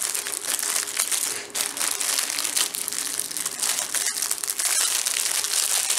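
Plastic packs of diamond painting drills crinkling and rustling steadily as they are handled and repacked.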